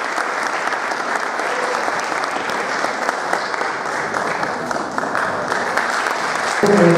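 Theatre audience applauding steadily, a dense patter of many hands clapping. A voice starts over the applause near the end.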